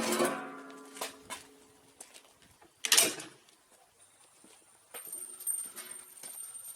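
Swiss K-31 straight-pull bolt being worked after a shot: a couple of light metal clicks about a second in, then a loud sharp clack about three seconds in, with the last of the previous shot's echo fading at the start.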